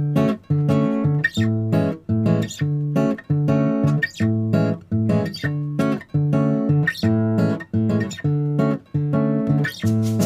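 Background music: an acoustic guitar strumming chords in a steady, even rhythm.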